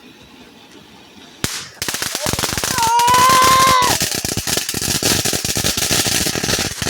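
A consumer firework cake going off: a sharp crack, then about five seconds of dense, rapid crackling pops, with a high whistling tone lasting about a second near the middle. The crackling stops just before the end.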